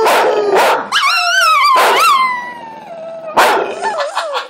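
A jug (pug–Jack Russell terrier cross) howling: long wavering howls that rise and fall in pitch, one sliding down and fading away, then a few short sharp yips and another howl near the end.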